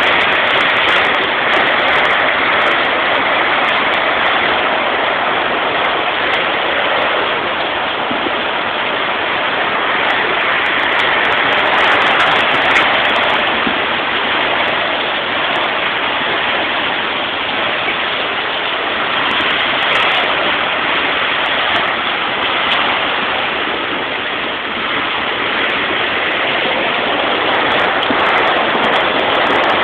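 Heavy rain pouring down: a steady, even hiss.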